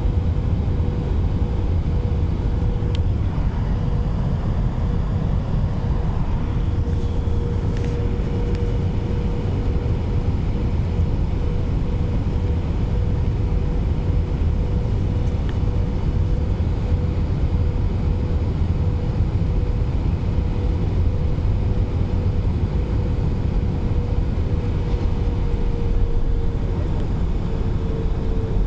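Airbus A320 cabin noise on descent toward landing: a steady rush of engines and airflow over the wing, with a steady hum running through it that dips slightly in pitch near the end.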